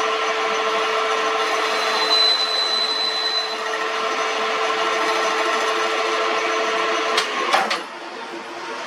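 Metal lathe running with a cutting tool scraping on iron, a steady hum with a brief high squeal about two seconds in. Two sharp clicks come about seven seconds in, and the noise then drops to a lower, steadier running sound.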